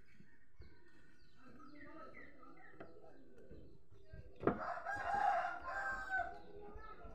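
A rooster crowing once, a loud call of nearly two seconds that starts a little past halfway, beginning with a sharp thump. Faint short bird or chicken calls come before it.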